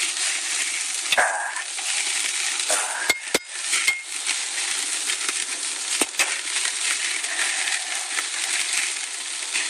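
Hamburger patties sizzling and crackling on a charcoal grill, a steady hiss broken by a few sharp clicks.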